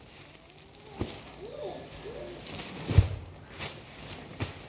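Plastic wrapping on a large box crinkling and rustling as it is handled, with a few sharp knocks, the loudest about three seconds in.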